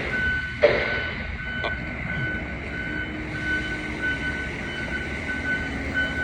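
Back-up alarm of heavy equipment beeping steadily, about two to three beeps a second, over a diesel engine running. A brief hiss comes about half a second in.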